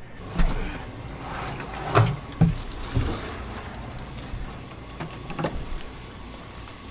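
A few scattered knocks and thumps over a steady low rumble, the loudest pair about two seconds in.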